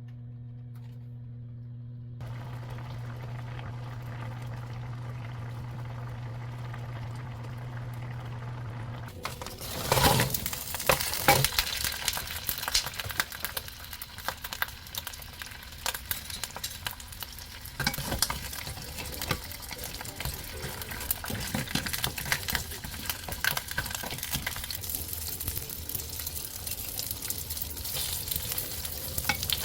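Food sizzling and crackling as it fries in a pan while it is stirred. The frying starts suddenly about nine seconds in, loudest just after it begins. Before that there is only a steady low hum and a faint hiss.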